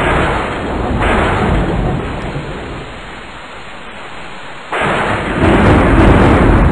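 Thunderstorm: rain with rolling thunder. One rumble swells about a second in and fades, then after a quieter lull a sudden loud crash of thunder breaks in near the end.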